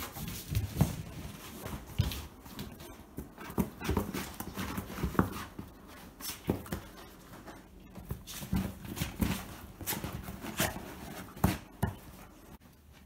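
Two Golden Retriever × English Cocker Spaniel mix dogs play-wrestling on a leather sofa: irregular scuffling and rubbing of fur and paws on the leather, broken by sharp knocks and thumps as they kick and roll.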